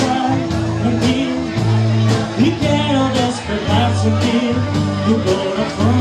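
Live band playing 1960s-style rock and roll: electric guitar, bass guitar and a steady drum beat, with a voice singing.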